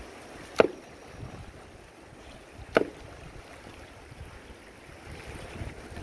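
Two sharp sledgehammer blows on a river boulder, about two seconds apart, over the steady rush of the river. This is hammer fishing: the shock through the rock kills or stuns fish sheltering beneath it, and they float off downstream.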